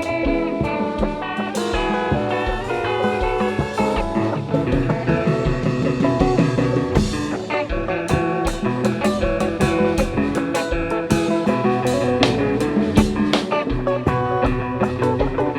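Haitian kompa band playing live, with guitar lines over a steady drum beat.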